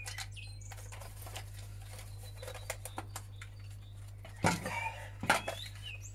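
Screwdriver clicking and scraping against the plastic battery cover of a handheld Vax vacuum cleaner as it is pried open, with two louder knocks of the plastic housing near the end.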